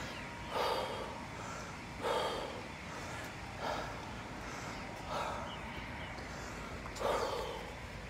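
A runner breathing hard, with a heavy puffing breath about every one and a half seconds, five in all.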